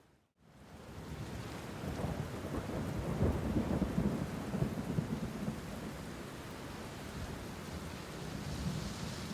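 Steady rain with a long roll of thunder that builds about two seconds in, is loudest in the middle, then slowly eases. The sound drops out for a moment at the very start.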